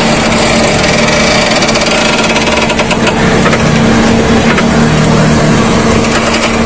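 A steady engine hum, with scattered sharp clicks from the front suspension as the wheel is rocked. The mechanic takes the clicking for a worn stabilizer bar end link.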